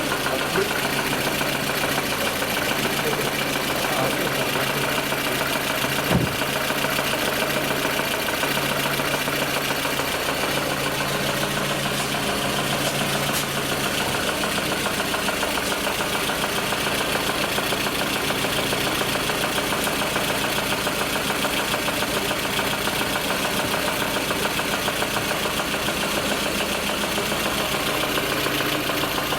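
Lada Kalina car engine idling steadily but running unevenly, with one sharp knock about six seconds in.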